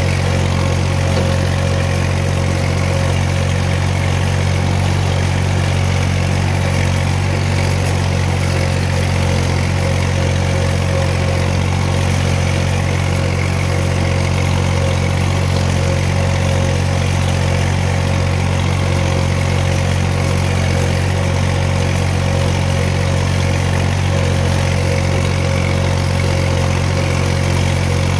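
A steady, unchanging low machine drone, with a faint higher hum above it.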